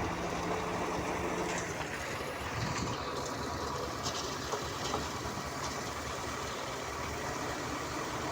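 Engine of heavy construction machinery running steadily, with a few faint ticks.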